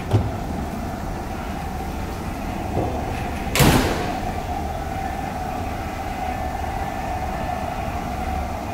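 Steady low hum of the ferry's onboard machinery and ventilation, with a steady mid-pitched tone over it. A door thuds right at the start, and a short, loud rushing noise comes about three and a half seconds in.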